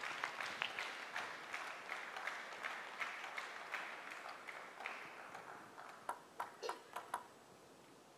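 Scattered clapping dying away, then about six seconds in a plastic table tennis ball bouncing five times, the sharp pings coming quicker as it settles, as a player readies to serve.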